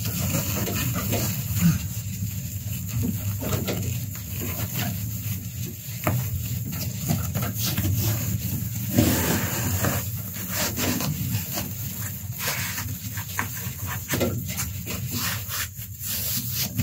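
Sheet of aluminium-faced foam insulation rustling and rubbing as it is pushed up and fitted between wooden roof battens against the minibus roof, with scattered short scrapes and taps, over a steady low hum.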